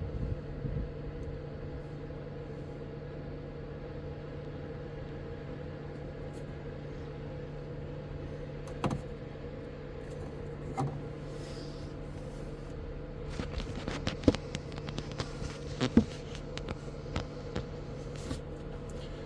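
12V under-bunk air conditioner running with its fan on low and the compressor on, a steady hum with a constant low tone and a higher one above it. Scattered short clicks and taps in the second half.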